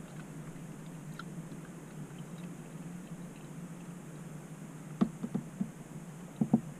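A person sipping and swallowing tea from a mug, in a few short sips about five seconds in and two or three more near the end, over a steady low hum.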